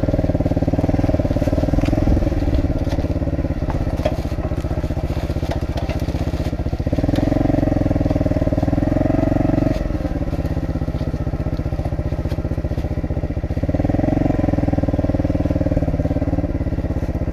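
Pit bike's single-cylinder engine running steadily, growing louder twice for two to three seconds, about seven and fourteen seconds in.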